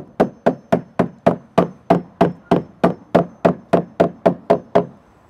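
Hammer tapping a wooden deck border board down into its half-lap corner joint: a fast, even run of sharp knocks, about three a second, that stops just before the end.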